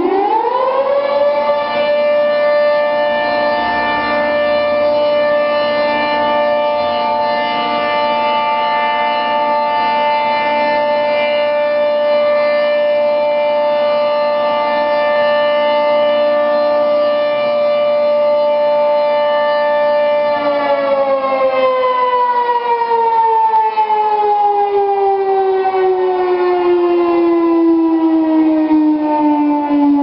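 Federal Signal 3T22 three-tone outdoor warning siren finishing its spin-up, then holding a steady chord for about twenty seconds before winding down in a long, slow falling tone.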